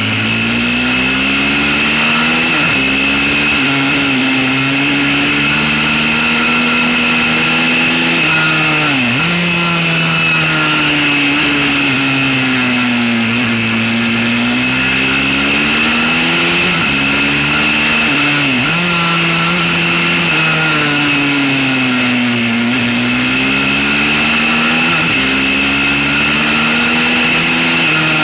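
Pit bike's small single-cylinder engine running hard on a track, its pitch climbing and falling with the throttle through the corners, with several sudden drops in pitch along the way. A steady high whine sits over it.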